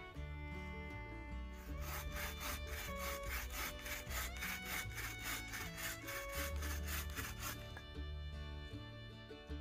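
Hand saw cutting wood with quick, even strokes, about four a second, for some six seconds from about two seconds in, over background music with sustained notes.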